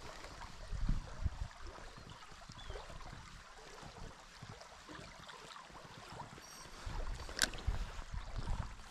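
Wind gusting on the microphone, in low rumbles, over the steady rush of a fast-flowing river. A single sharp click sounds about seven and a half seconds in.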